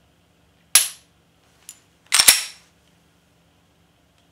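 Glock 43 striker-fired 9mm pistol being dry-fired: a sharp metallic click of the trigger breaking about three-quarters of a second in, a faint click, then a quick double click of the action about two seconds in.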